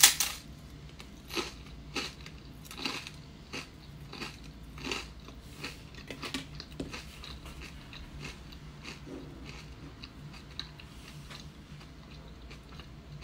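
A loud crunching bite into a crisp buckwheat toast, then crunchy chewing with a crackle every half second or so, fading out after about seven seconds.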